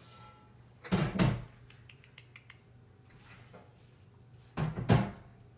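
Two short knocks of kitchen dishwashing clatter at the sink, each a quick double knock with a low thump, about a second in and again near the end, with a few light clicks between them.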